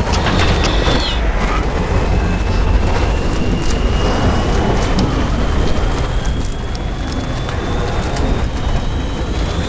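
Film sound of an airliner cabin ripped open in flight: a loud steady rush of wind over a deep rumble, with scattered knocks and rattles of flying debris and a thin high whine that slowly rises in pitch.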